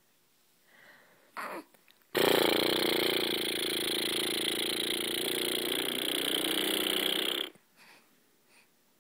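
A woman's voice making a long, steady, buzzing snore-like noise that lasts about five seconds. It starts a couple of seconds in and cuts off sharply.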